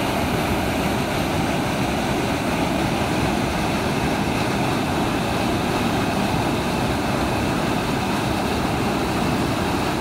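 Floodwater rushing through the openings of a concrete sluice gate and churning white where it falls, a steady loud rush of water.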